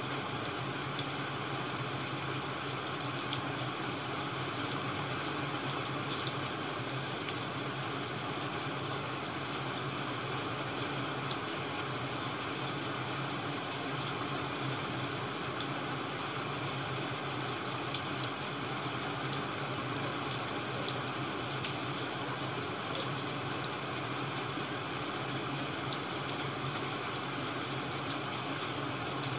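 Steady ambient rain hiss mixed with a crackling wood fire, small pops scattered irregularly throughout.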